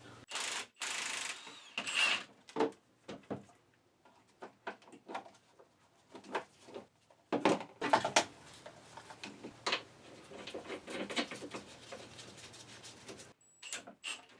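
Irregular clicks, knocks and rustling of seat-belt and power-seat parts being handled and worked apart by hand, with a few brief scraping bursts in the first two seconds.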